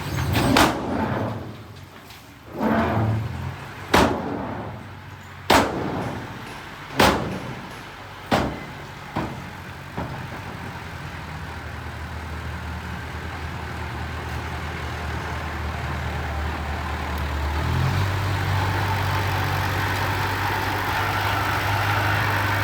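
Heavy diesel construction machinery: six or seven loud bangs over the first ten seconds, then a steady low engine drone whose note steps up about three-quarters of the way through.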